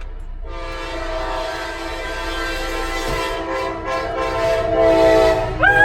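CSX freight locomotive's multi-chime air horn played for a horn show: the tail of a short blast, then one long blast of about five seconds, broken by a few quick dips in its second half. Near the end a person lets out a loud, high whoop over it.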